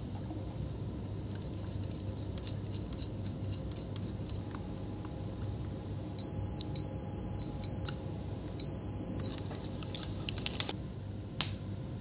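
Digital multimeter's continuity beeper sounding as a high-pitched beep broken into four short pieces over about three seconds, starting about halfway in, as the probes touch across a newly fitted fuse: the beep shows the fuse conducts and is not open. A few light clicks of probe handling follow.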